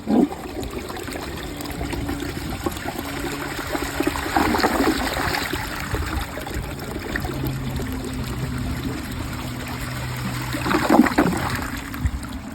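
Toilet tank refilling after a flush: water trickling and running steadily with a low hum from the fill valve, swelling louder twice.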